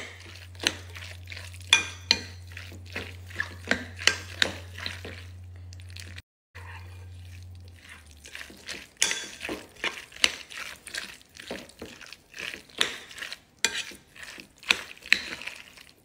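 A spoon stirring a tahini and yogurt salad of chopped cucumber in a bowl, with irregular clinks and scrapes against the bowl; the sound drops out briefly about six seconds in. A low steady hum runs under the first half.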